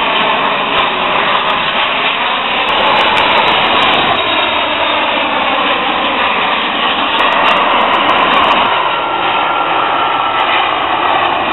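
Jet engines of low-flying airliners on final approach, a loud steady rush with a faint whine that slowly slides in pitch as the aircraft pass.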